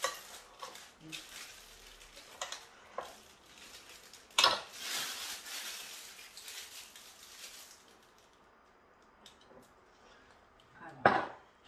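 Kitchen utensils and bowls being handled: scattered clinks and knocks, a sharp knock about four seconds in followed by a few seconds of rough scraping noise, and another loud knock near the end.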